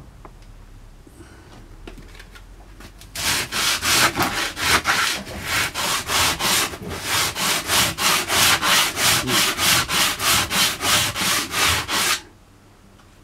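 Coarse 60-grit sandpaper rubbed briskly back and forth by hand over pallet wood, about three strokes a second. The sanding starts about three seconds in and stops abruptly near the end.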